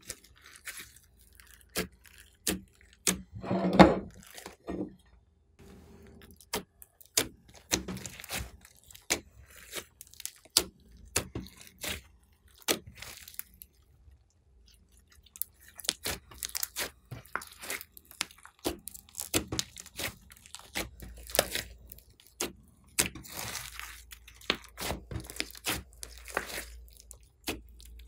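Glossy slime mixed with foam beads being squeezed and kneaded by hand: wet squelches with a steady run of sharp clicks and pops, a louder squelch about four seconds in, and a short lull near the middle.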